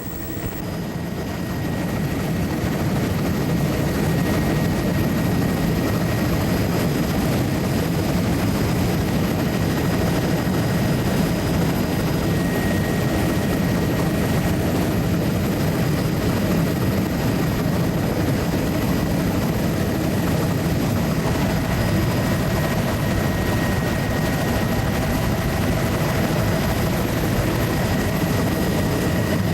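Survey aircraft in low cruise heard from on board: a steady, loud drone of engine and airflow, strongest in the low range, with a faint steady whine above it. It grows a little louder over the first couple of seconds, then holds even.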